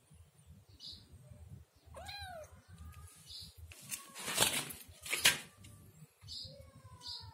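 A young kitten gives one clear meow about two seconds in, rising then falling in pitch, and a fainter falling mew near the end. Two loud bursts of scuffling noise about four and five seconds in are the loudest sounds.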